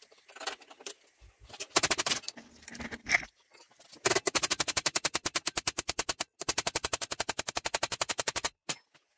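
Hammer striking a laser-welded 6 mm mild steel plate clamped in a bench vise, in a fast, even run of blows (about ten a second) from about four seconds in until near the end, with one short break midway. Before that, scattered metal clanks and rattles as the piece is set and tightened in the vise. It is an abuse test of the weld, which holds while the vise breaks.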